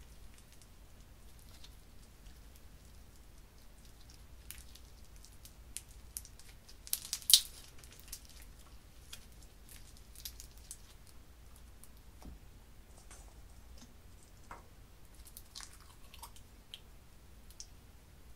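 Slime being squeezed and stretched by hand, making scattered faint crackles and small clicking pops, with a louder cluster of pops about seven seconds in.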